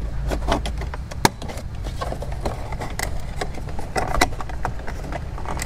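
Scattered plastic clicks and knocks as a 2015 Chevrolet Cruze's center-console trim panel is pried with a plastic panel removal tool, working its retaining clips loose. The sharpest snap comes about a second in, over a steady low hum.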